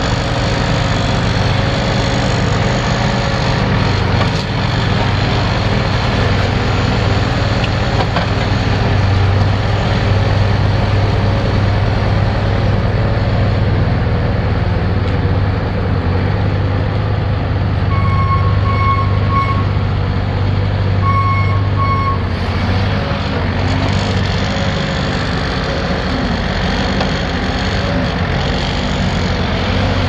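A 2011 Bobcat S185 skid steer's Kubota 2.6 L four-cylinder diesel runs steadily. About two thirds of the way through, its backup alarm beeps in two short runs, a sign that the loader is reversing.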